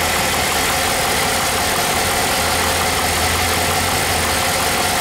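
1996 GMC truck engine idling steadily. It runs smoothly, but its intake manifold gaskets have failed and antifreeze is running out the back of the motor.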